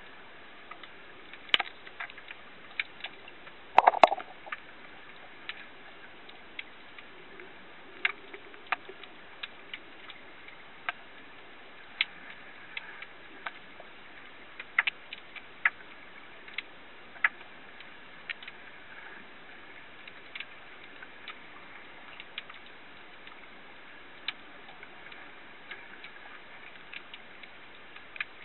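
Underwater ambience picked up by a camera in shallow sea water: scattered sharp clicks and snaps, irregular at about one or two a second, over a faint steady hiss. A brief cluster of louder knocks comes about four seconds in.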